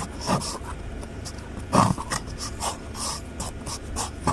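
Hands working a plastic trim fastener loose on an under-dash panel: a run of short, irregular scrapes and taps of fingers and plastic. The loudest scrape comes a little under two seconds in.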